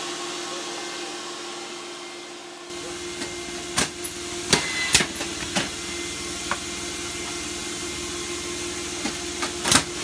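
Vacuum seeder for pelletized tobacco seed running with a steady hum, while sharp clacks and knocks of plastic seedling trays and the seeder plate being handled come irregularly from about three seconds in.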